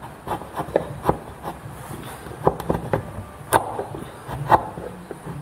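Chisel paring by hand into a recess cut for an inlay patch in a ginkgo board: a run of short, irregular cutting and scraping strokes, about two a second. The sharpest come about three and a half and four and a half seconds in.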